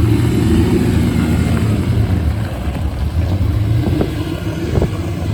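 Ferrari 250 GT California Spyder's V12 running as the car moves off, the engine note easing slightly toward the end. A short sharp knock near the end.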